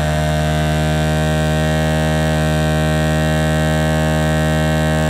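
Loud, steady low buzzing hum: one unchanging tone with a long stack of overtones.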